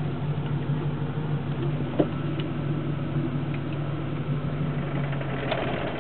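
Manual transmission rattling with the engine idling: a steady engine hum with a light rattle over it. One sharp click about two seconds in.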